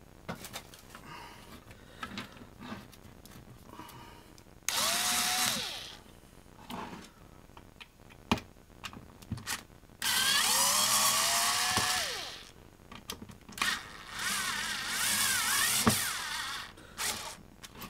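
Cordless screwdriver running in three bursts of one to three seconds each, backing screws out of a steam iron's housing. Its whine rises as it spins up and wavers under load. A few sharp clicks fall between the bursts.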